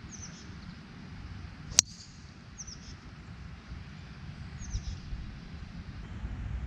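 A golf club strikes a teed golf ball once, a single sharp crack about two seconds in, over a low wind rumble. Small birds chirp a few times in short, quick, falling chirps.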